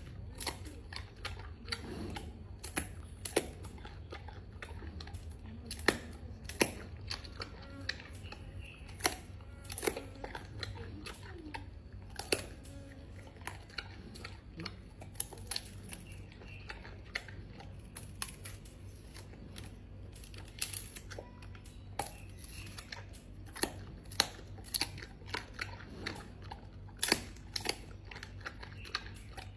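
Giant panda biting and chewing through tough bamboo stalks: a long run of sharp, irregular cracks and crunches as the stalks splinter between its teeth.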